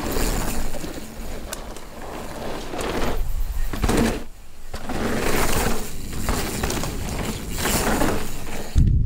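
Mountain bike tyres rolling and skidding on a loose dirt trail, the noise swelling in several rushes as the bike passes close, over a steady low rumble. A sudden low thump comes near the end.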